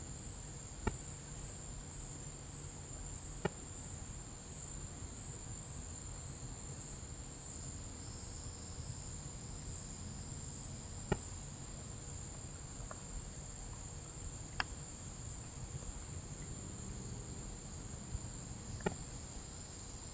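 Steady, high-pitched chorus of night insects, with about six brief sharp clicks scattered through it.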